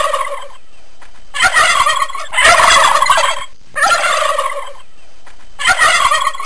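Wild turkey gobbling: a string of loud gobbles, each about a second long, with short gaps between them.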